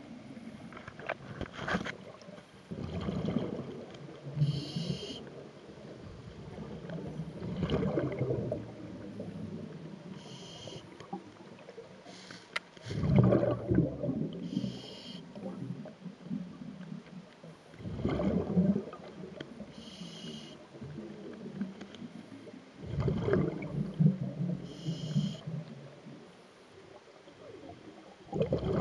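Scuba diver breathing through a regulator underwater: a gurgling rush of exhaled bubbles about every five seconds, with a short hiss of the regulator's inhale between each one.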